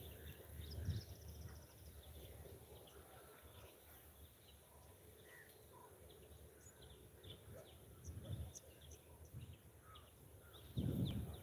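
Faint outdoor ambience of scattered short bird chirps, with a few brief low muffled rumbles about a second in, about eight seconds in and again near the end.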